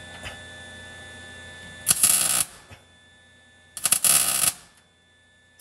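Welder laying short tack welds on a steel mounting bracket: two crackling bursts of about half a second each, about two seconds apart, with a third starting at the very end.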